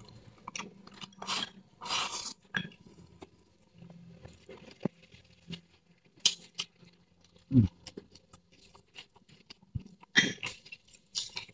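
Mouth sounds of a person chewing chewy stir-fried snake and rice, with light chopstick clicks against a porcelain bowl. A short, low hum from the eater comes about two-thirds of the way through.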